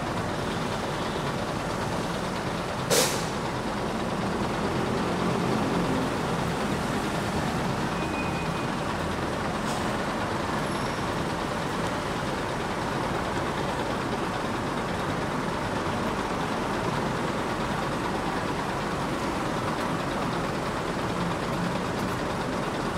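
Daewoo BH115 bus's diesel engine idling steadily, heard at the rear by the exhaust pipe. A brief sharp burst about three seconds in.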